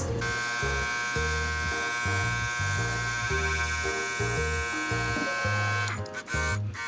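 Small airbrush compressor buzzing steadily, with the hiss of air from the airbrush as it sprays weathering paint onto a model road; the buzz breaks off briefly near the end.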